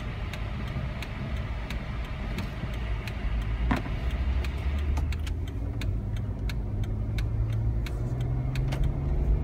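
Car driving slowly, heard from inside the cabin as a steady low engine and road rumble. A turn signal ticks evenly over it, a few ticks a second, signalling a left turn.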